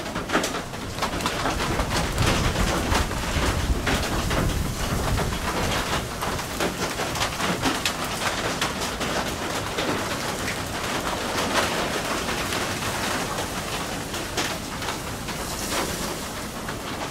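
Sudden rain shower falling steadily, with many separate drops striking leaves and the ground; it grows heavier right at the start and then holds steady.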